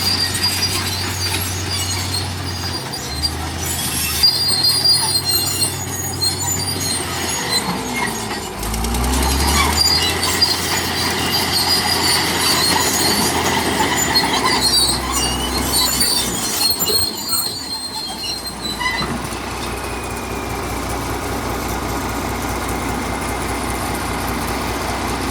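Crawler bulldozer's steel tracks squealing and clanking as it works, over its diesel engine. The squealing dies away about three-quarters of the way through, leaving the engine running steadily.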